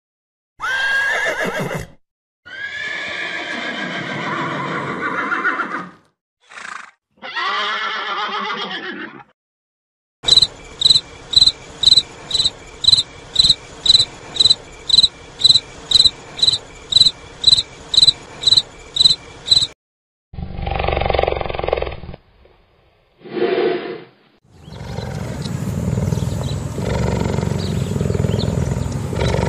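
Horses neighing: several whinnies with gliding pitch in the first nine seconds. Then a cricket chirping, a regular string of short high chirps about two a second for about ten seconds. After that come two short rough calls and a longer rasping sound in the last few seconds.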